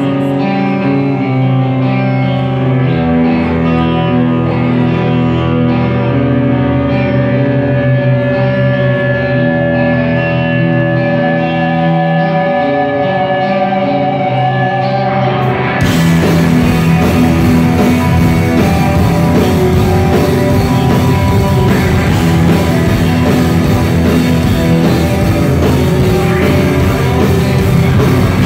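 Live rock band with electric guitars, bass and drums. It opens with held, ringing guitar notes and no drums, then a little over halfway through the whole band comes in at once, with drums and cymbals under the guitars.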